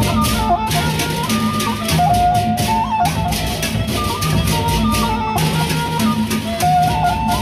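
Sasak gendang beleq ensemble playing: a flute carries a stepping melody over large drums, gongs and steady clashing cymbals.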